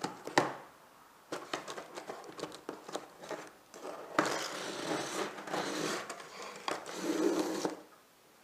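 A cardboard storage box being opened and unpacked by hand: scattered knocks and scrapes, then from about four seconds in a few seconds of steady rustling and crinkling of packaging.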